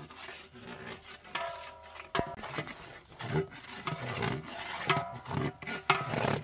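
A long-handled metal spoon stirring and scraping onions and spices frying in oil in a large aluminium cooking pot, with an uneven scraping rhythm and one sharp knock about two seconds in.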